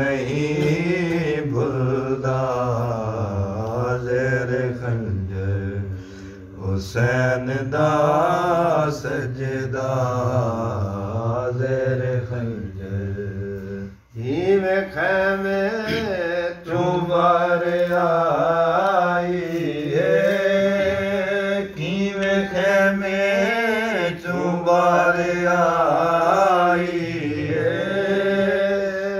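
A man's voice chanting a noha, a Shia lament for Imam Hussain, unaccompanied. He holds long drawn-out notes that rise and fall, breaking off briefly about 6 and 14 seconds in.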